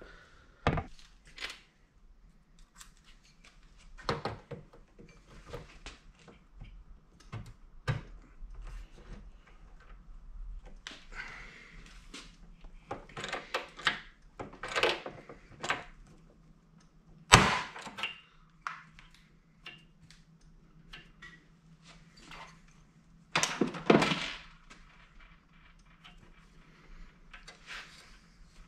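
Scattered knocks, clinks and rattles of an aluminum radiator with two electric fans and its hardware being handled on a metal workbench. The loudest knock comes about 17 seconds in, with another short cluster of knocks around 24 seconds.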